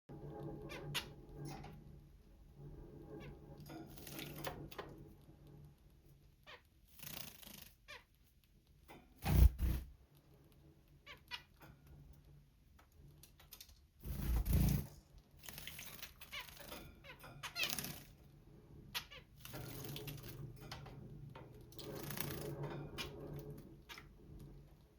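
Zebra finch bathing: repeated short bursts of splashing water and flapping wings, the two loudest about nine and fourteen seconds in, with squeaky nasal calls in between.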